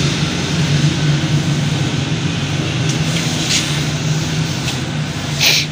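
Steady machine drone with a low hum, over which come a few short clicks and knocks as a light aluminium tripod is handled and adjusted, the loudest one near the end.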